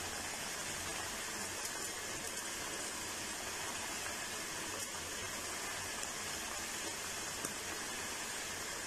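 Steady low hiss of masala vegetable broth boiling in an aluminium pot over a high gas flame.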